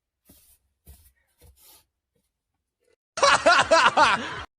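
Human laughter: after a few faint quiet sounds, a loud burst of rapid laughing bursts out about three seconds in, lasts about a second and a half, then cuts off suddenly.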